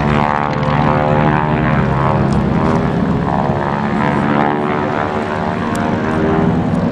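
Harvard trainers' Pratt & Whitney R-1340 Wasp radial engines and propellers droning overhead, a steady loud drone whose pitch drifts slowly as the aircraft move.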